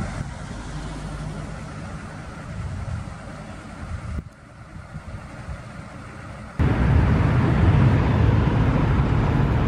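A low outdoor rumble. Then, after a sudden jump in level about two-thirds of the way through, a group of motorcycles approaches with their engines running steadily.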